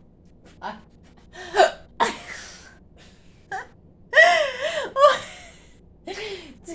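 A person hiccuping and gasping: short, sharp vocal jerks and breaths about a second apart, with a longer wavering voiced cry about four seconds in.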